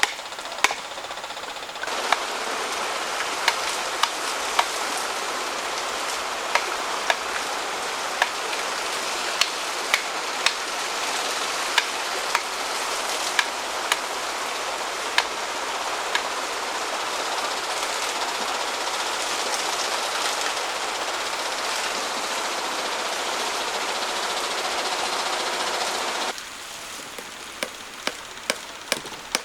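Sharp knocks of tools striking wood, roughly one a second, over a steady rushing noise that starts about two seconds in and cuts off abruptly near the end.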